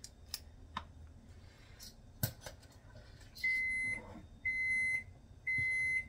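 Kitchen stove's preheat signal beeping: three high beeps about a second apart, each about half a second long, starting about halfway through, meaning the oven has reached its set temperature of 400 °F. A few light clicks come before the beeps.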